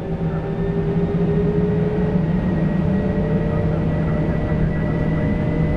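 Airbus A320's twin jet engines spooling up to takeoff thrust as the takeoff roll begins, heard from inside the cockpit. A whine rises in pitch and loudness over the first couple of seconds, then holds steady over a low rumble.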